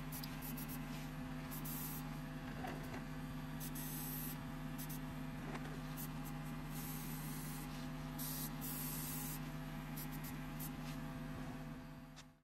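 Gravity-feed airbrush spraying brown weathering paint onto a model locomotive's snowplow: a steady hiss of air over a low, even hum, cutting off suddenly near the end.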